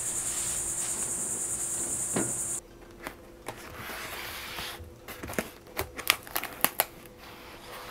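A steady high-pitched insect chorus, which cuts off abruptly about two and a half seconds in. Then the crinkling and light clicks of a plastic-wrapped foam shipping box being turned over and handled.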